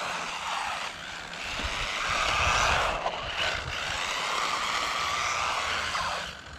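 Electric RC drift truck's motor and geartrain whining during a speed run. The whine rises and falls in pitch and loudness, dipping about three seconds in and again near the end as the truck slows.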